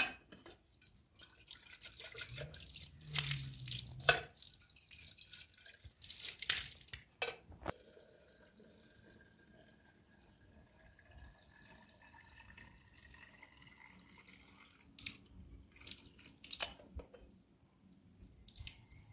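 A thin stream of water poured from a metal kettle, splashing and dripping onto concrete and over a hand being rinsed under it. The splashes come irregularly, thickest in the first several seconds, thinning in the middle and picking up again near the end.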